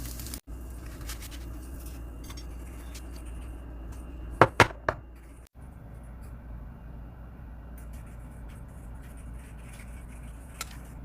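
Kitchen utensils clinking against dishware: three sharp clicks in quick succession about four and a half seconds in, with a few lighter taps, over a steady low hum.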